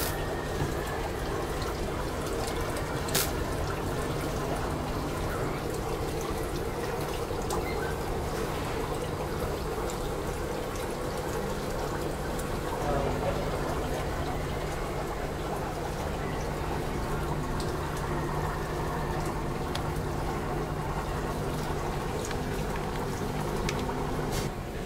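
Water running and trickling steadily in a live seafood tank, over a steady low hum, with a couple of faint clicks.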